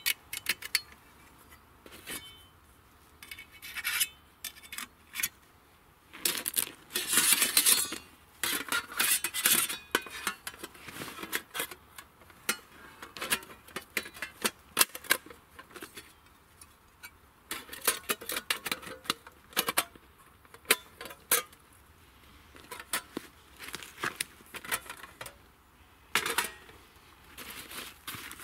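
Thin stainless-steel plates of a Skotti folding grill clinking and scraping against each other as they are slotted together: irregular sharp clicks with a few longer sliding scrapes.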